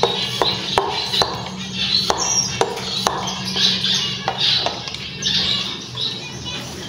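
Many small finches chirping continuously in an aviary, in short repeated calls. Scattered sharp clicks and knocks come from a plastic pump sprayer being handled, over a steady low hum.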